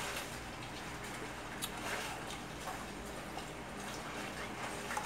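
A few light clicks and taps of kitchen utensils over faint room noise.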